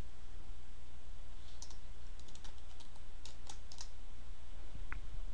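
Computer keyboard typing: a quick run of keystrokes starting about one and a half seconds in, with one more near the end, over a steady low hum.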